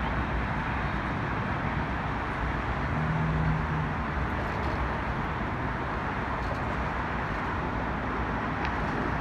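Steady roar of city traffic with a brief low hum about three seconds in.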